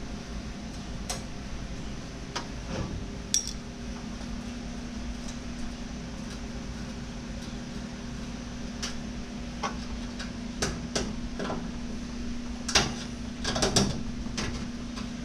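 Wrenches clinking and clicking on metal brake line fittings while the lines are undone, in scattered single clicks with a quick cluster near the end. A steady hum runs underneath.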